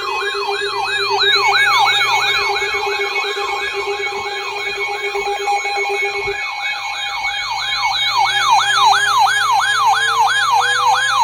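Several sirens sounding together: a fast electronic yelp sweeps up and down about three times a second over steady alarm tones. About eight seconds in, a low tone starts slowly rising, like a siren winding up.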